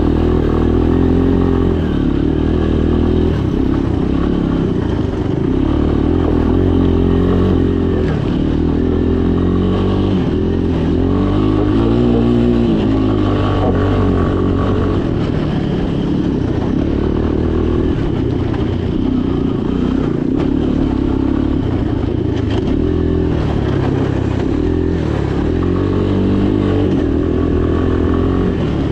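Three-wheeler ATV engine running under load, its pitch rising and falling with the throttle, pulling steadily with no break.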